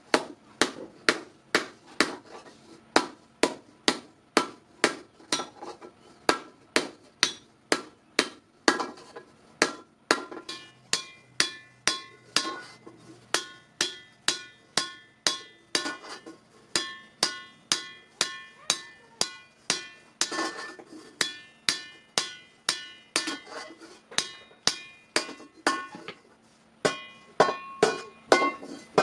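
Hand hammer striking the metal of a kadai (wok) being shaped by a blacksmith, a steady blow about twice a second. From about a third of the way in, each strike leaves a ringing metallic tone.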